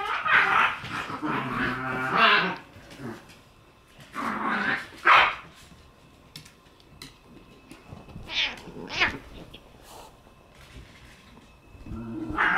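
A cat growling and yowling in protest at being pestered: a long drawn-out call at the start, then shorter ones about four seconds in, eight seconds in and at the very end.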